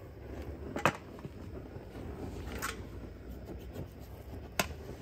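Hose-fed gas torch burning with a steady low rush as it singes the hair off cow legs, with scraping on the legs and two sharp metallic clicks, about a second in and near the end.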